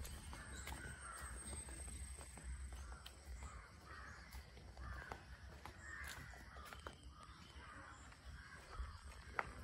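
Crows cawing repeatedly in the background, faint, with a few soft clicks and one sharper click near the end.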